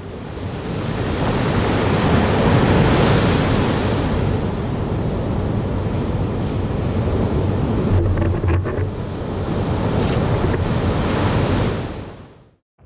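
Ocean surf breaking and washing, with wind buffeting the microphone. It fades in at the start and fades out shortly before the end.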